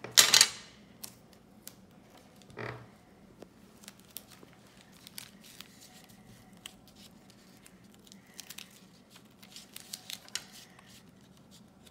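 Paper and clear sticky tape being handled on a table: a short, loud ripping rustle just after the start, then a duller rustle, then faint scattered crinkles and small clicks as the paper is folded and pressed down.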